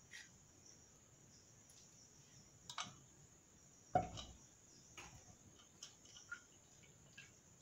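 Light clinks and ticks of steel plates and bowls as rice is served by hand, with one louder thump about four seconds in, over a steady high chirring of crickets.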